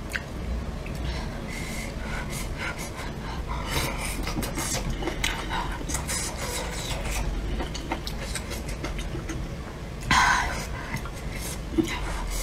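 A person eating hot pot close to the microphone: chewing and mouth noises with frequent small clicks of chopsticks against the bowl and food container, and a louder breathy sound about ten seconds in.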